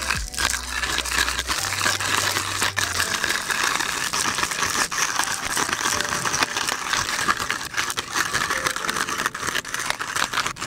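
Hario MSC-2DTB ceramic-burr hand grinder crushing coffee beans as its crank turns: a dense, rapid crackle of beans breaking in the burrs.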